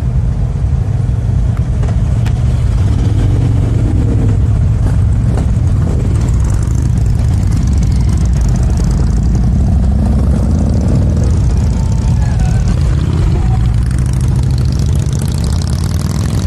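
Several cruiser and touring motorcycles running at low revs and pulling away one after another, the engine pitch rising and falling as each bike accelerates past.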